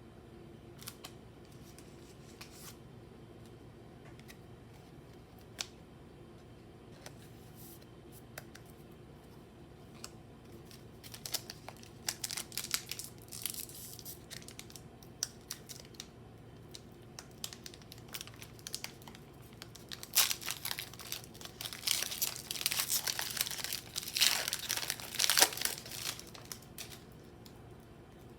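A foil Pokémon booster-pack wrapper being handled, torn open and crinkled: scattered light clicks and taps at first, crinkling from about eleven seconds in, then loud tearing and crumpling of the wrapper near the end.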